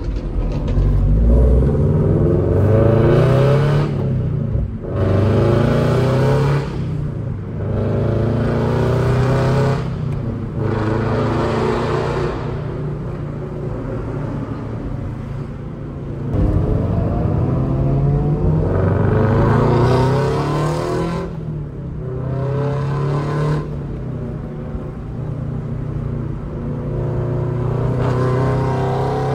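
Car engine accelerating hard, its pitch climbing and then dropping suddenly several times over, as in pulls through the gears.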